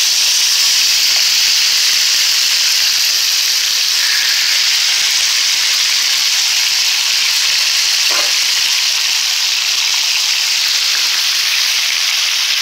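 Chicken breast pieces frying in hot oil in a black skillet, a loud, steady sizzle.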